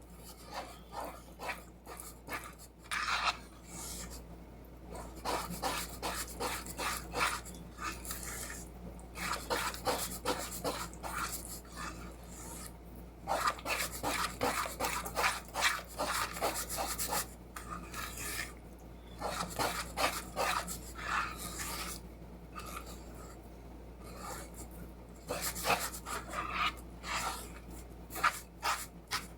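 Spoon stirring thick cake batter, scraping against the sides of the container in rapid strokes, in spells broken by short pauses.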